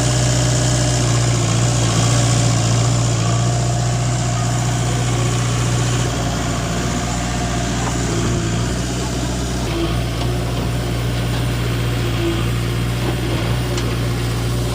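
Heavy diesel engine of earthmoving machinery running steadily at a low, even speed, with a deep constant hum and a few faint knocks in the second half.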